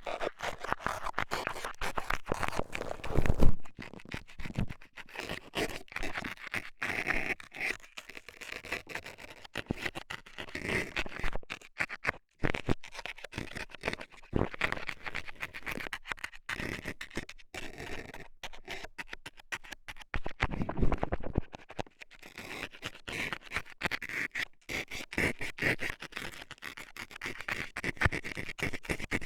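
Scaler tool scratching and poking in an ear, in a rapid, continuous run of close-up scrapes. There is a louder bump about three seconds in and another about twenty seconds in.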